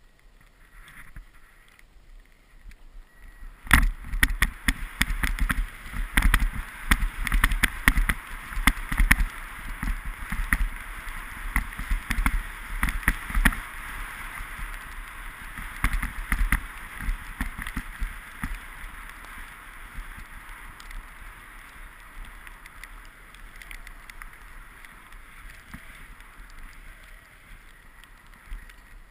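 Scraping and chattering of a rider's edges sliding fast over snow, picked up by a GoPro camera, with many sharp knocks and thuds from bumps in the snow. It starts with a sharp knock about four seconds in, is loudest in the first half, and eases off toward the end.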